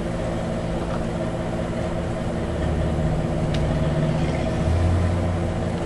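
Steady mechanical hum made of several level tones, its low end swelling for a few seconds in the middle, with a couple of faint clicks.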